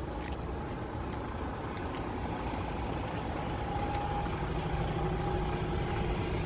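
DAF XF 530 truck's diesel engine running at low revs, a steady low rumble that grows a little stronger about two-thirds of the way through as the truck moves slowly off.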